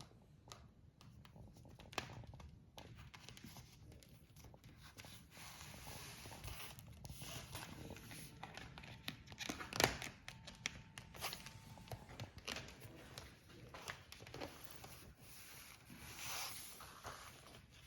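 Rubber fridge door seal being worked by hand, giving faint rustling and rubbing with scattered clicks and one sharper click about ten seconds in.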